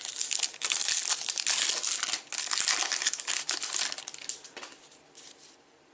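Crinkling plastic wrapping on a trading card blaster box being torn open and handled, a dense crackle that dies away about four and a half seconds in.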